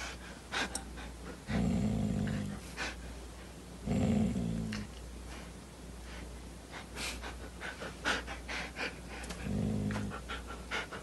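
A dog growling in three short bouts, about a second and a half in, about four seconds in and near the end, with scattered short clicks between them.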